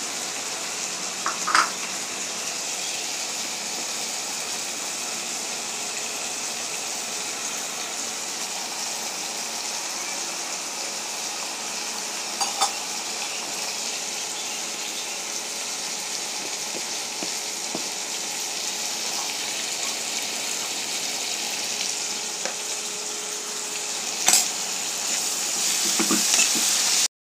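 Chopped vegetables and spices sizzling steadily in hot oil in a wok while being fried. A spoon taps sharply against the pan a few times.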